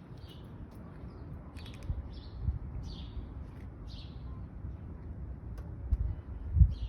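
A small animal's short, high chirping calls, about five of them roughly a second apart, with a few dull thumps, the loudest near the end.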